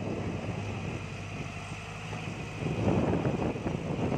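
Caterpillar 312 hydraulic excavator's diesel engine running steadily as the machine swings a loaded bucket, the engine working harder and getting louder about three seconds in.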